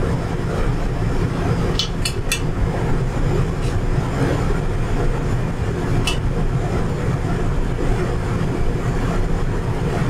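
Steady low rumble of a commercial kitchen's gas range and ventilation. A few short metal clicks about two seconds in and again near six seconds, from a skimmer against a pot of frying oil that is not yet hot enough.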